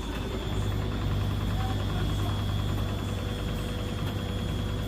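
Beko WS832425s washing machine running its drum, the motor giving a steady low hum that steps up about half a second in and holds. The machine is pushing on with the cycle despite a load the owner has called unbalanced.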